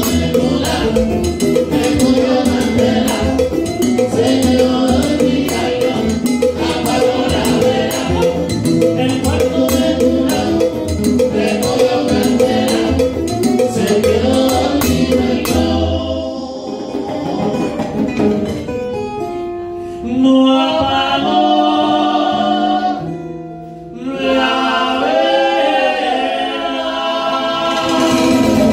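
A live Latin band plays with conga drums, electric upright bass, acoustic guitar and lead and backing vocals. About sixteen seconds in, the drums and bass drop out and the voices sing in harmony unaccompanied, with a short break. The full band comes back in near the end.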